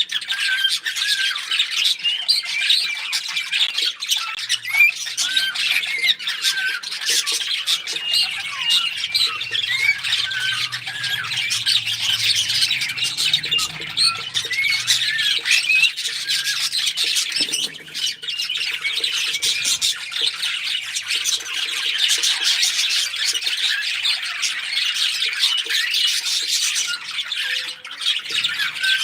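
Several small pet parrots chirping and chattering nonstop: many short, overlapping calls and whistled warbles.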